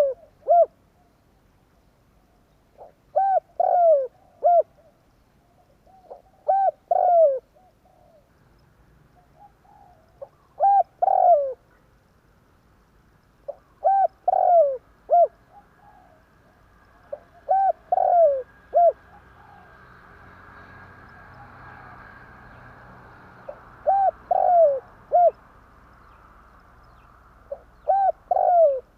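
Spotted dove (tekukur) cooing: a phrase of three or four falling coo notes, repeated about every three to four seconds.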